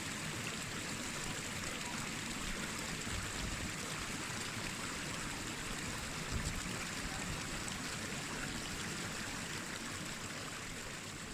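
Steady rush of flowing mountain water, an even hiss with no break, easing off slightly near the end. A single small knock about six seconds in.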